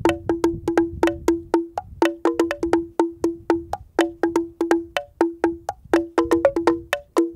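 Homemade driftwood xylophone played by two players with driftwood sticks: a quick, busy stream of strikes on the wooden bars, each a short, dry wooden note. One low bar recurs most often among higher ones.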